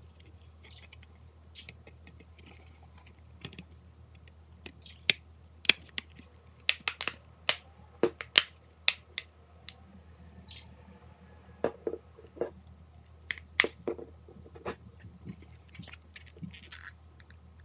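Irregular sharp clicks and snaps of small hard parts being handled, bunched in the middle with several loud snaps, over a faint steady low hum.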